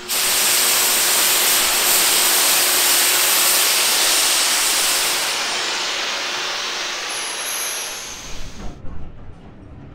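Loud, steady hiss of steam from LMS Black Five steam locomotive 5428's safety valves blowing off at full boiler pressure. It starts suddenly, fades from about halfway and cuts off near the end, leaving a low rumble.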